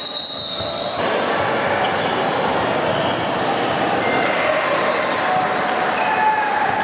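Basketball being dribbled and played on a hardwood gym court, with short sneaker squeaks and players' voices, all echoing in the large hall.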